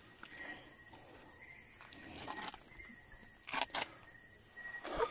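Crickets and other insects chirring steadily in the night, with a few short knocks, two close together about three and a half seconds in.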